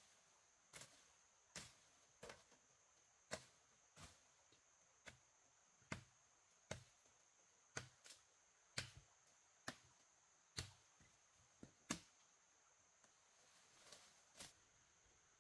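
Wood being chopped with a blade: faint, sharp strikes about once a second, pausing briefly near the end, over a steady high-pitched hum.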